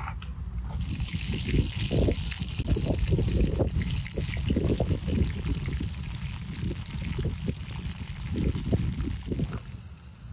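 Liquid being poured in a steady stream, starting about a second in and stopping a little before the end.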